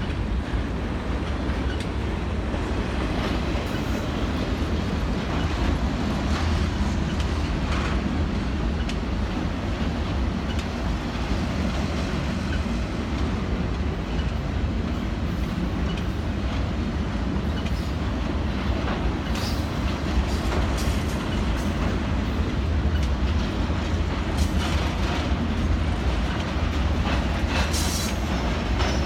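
Canadian Pacific Expressway train's cars rolling past: a steady low rumble of wheels on rail, with irregular clicks and clacks as the wheels cross the rail joints.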